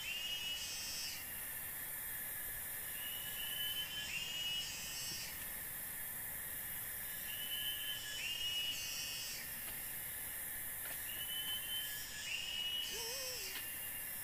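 Night-time tropical forest ambience: a steady high drone of insects, with a chorus of calls that swells and fades in a cycle about every four seconds over a constant thin tone. A brief lower call comes near the end.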